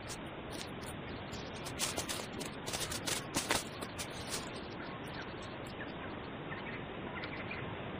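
Quiet outdoor field ambience: a steady hiss with a run of short clicks and rustles about two to four seconds in, and faint bird chirps near the end.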